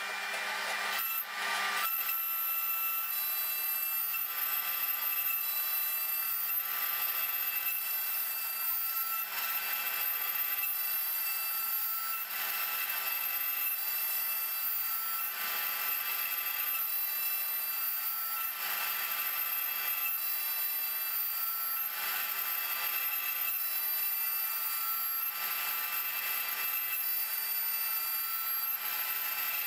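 CNC router spindle running with a steady high whine while a quarter-inch end mill rough-cuts a walnut block, the cutting noise swelling and easing every few seconds as the tool makes its passes.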